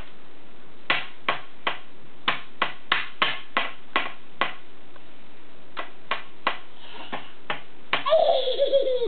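Crayon tapped against a tabletop: a run of sharp taps, roughly three a second, with a short break in the middle. Near the end a toddler's voice cries out in a squeal that falls in pitch.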